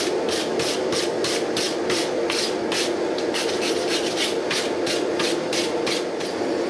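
Wire brush scrubbed back and forth over hot forged steel pickaroon heads on an anvil, about three to four strokes a second, taking the sander marks off to leave a black finish, over a steady low drone.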